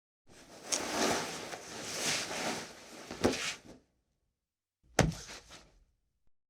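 Body-fall sound effects: a tumbling fall of about three and a half seconds, scuffing with several thumps, the strongest near its end, then a single sharp thud about five seconds in.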